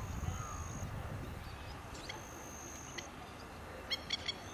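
Lakeside outdoor ambience: a low wind rumble on the microphone, a thin high steady tone heard twice for about a second each, and a quick run of short bird chirps near the end.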